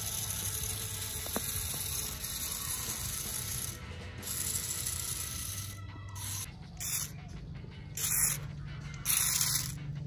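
Remote-control toy grasshopper's motor and leg gearing whirring and scraping: a steady grinding for the first few seconds, then several short separate bursts as it walks in spurts.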